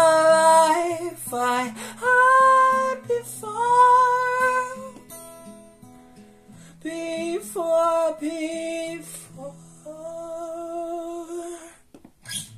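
A young voice sings slow, held notes over picked guitar notes, loud at first and softer in the second half. Both stop near the end, followed by a single click.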